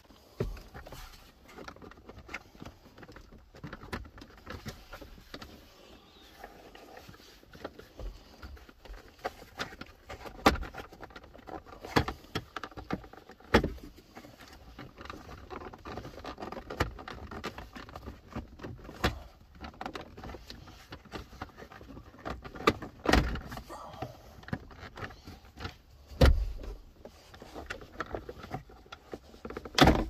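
Irregular knocks and clicks of hands working plastic steering-column trim in a car cabin, about a dozen sharp knocks spread out with quieter handling noise between.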